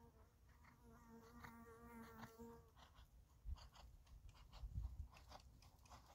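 A fly buzzing close by for the first two or three seconds, then the hoofbeats of a ridden horse on arena sand coming nearer, with two heavier low thumps around the middle.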